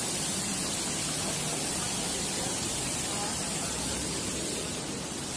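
Floodwater pouring in a sheet from a metro tunnel ceiling onto the tracks, a steady unbroken rush of falling water.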